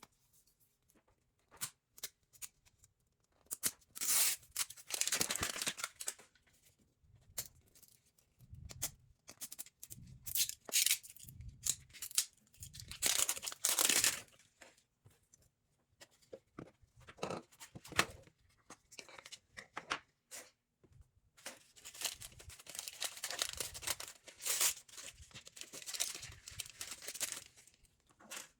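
Packaging being torn open and crinkled, in irregular bursts of tearing with small clicks and taps between them.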